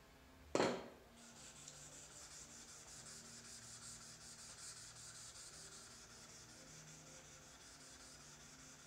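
Steel card scraper rubbed flat back and forth on a 1000-grit waterstone: a steady, fine scraping, to clean up the scraper's face before a new burr is put on. A brief knock about half a second in comes before the rubbing starts.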